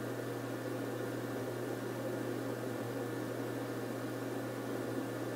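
A steady low hum with a faint hiss that does not change.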